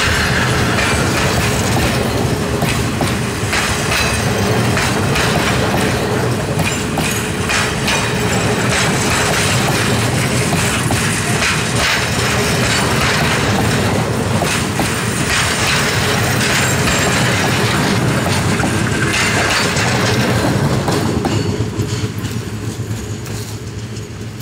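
Railway passenger carriages rolling past at close range, their wheels clicking and clattering over the rail joints. The sound fades away near the end as the last carriage passes.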